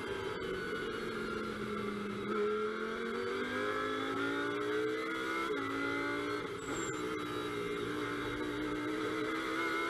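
Lamborghini Huracán GT3's V10 engine heard from inside the cockpit: its note falls for about two seconds, then rises as the car accelerates, with quick upshifts about five and a half and six and a half seconds in, after which it climbs only slowly.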